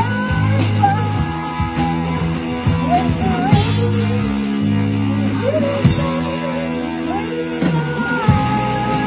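Live rock band playing: a woman sings long held notes that slide between pitches over electric guitar, bass guitar and a drum kit.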